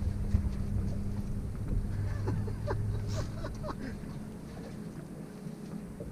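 A boat motor hums steadily and fades out about two-thirds of the way through. Scattered light clicks and knocks sound over it.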